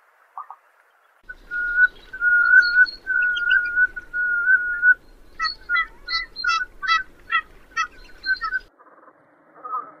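Velvet scoter (Melanitta fusca) calling: four held whistled notes, each about half a second to a second long, then a quicker run of short, sharper piping notes, about three or four a second.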